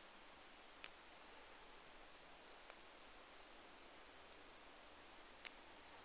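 Near silence broken by four faint, sharp clicks a second or two apart: a steel lock pick working the pin stack of a five-pin Union padlock while it is single-pin picked.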